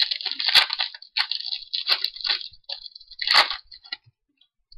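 A foil trading-card pack wrapper being torn open and crumpled by hand, in a series of irregular rustling bursts, the loudest about half a second in and again about three and a half seconds in.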